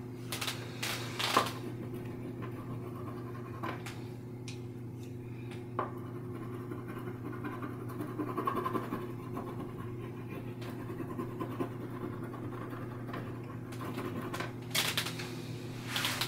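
Scratchy strokes of a sketching tool across a toned painting panel, coming in short scattered runs, the loudest just after the start and near the end, over a steady low hum.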